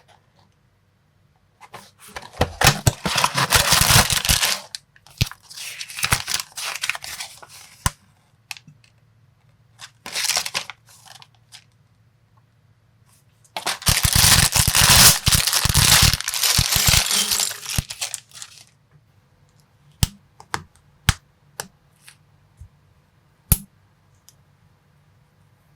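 Plastic packaging crinkling and tearing in several long rustling stretches, then about seven short, sharp clicks of small plastic building-block pieces.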